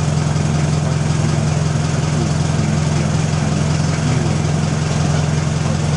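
An engine running steadily at idle, a constant low hum, under an even rushing hiss.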